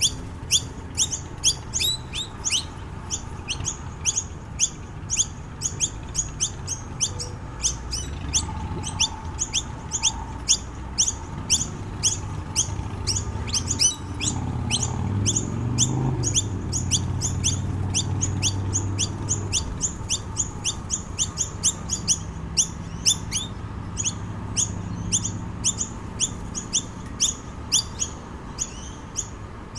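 Noisy miners calling: a long, even series of short, sharp, high chirps, about two to three a second.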